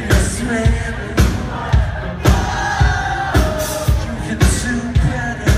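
Live rock band playing: drums keeping a steady beat of about two hits a second under a male lead vocal sung into a microphone, with violins in the arrangement.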